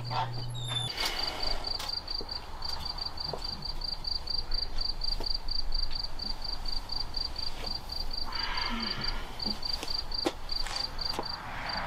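A cricket chirping steadily in short, evenly spaced high chirps, nearly four a second, pausing briefly about nine seconds in. A soft rushing sound rises briefly just before that pause and again near the end.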